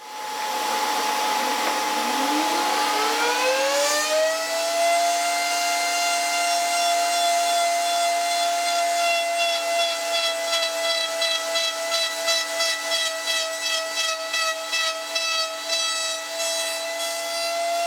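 A router in a router table starting up, its whine rising in pitch over about three seconds to a steady high note. From about nine seconds in the sound flutters rapidly as the chamfer bit cuts into the end of a wooden rod.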